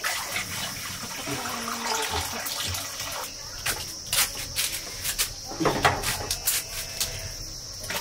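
Water splashing and pouring into a cooking pot on a wood-fired stove, with repeated clinks and knocks of a bowl against the pot, the loudest splash about two-thirds of the way through. A steady high insect drone runs behind.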